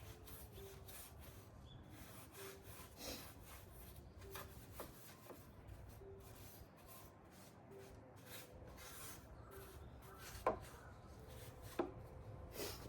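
Repeated rubbing strokes on wooden boards, with two sharper knocks near the end.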